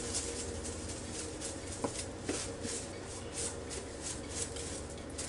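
Lemon pepper seasoning shaken from a spice shaker over a whole raw chicken: a dry rattling swish repeated about three times a second, with two light knocks about two seconds in.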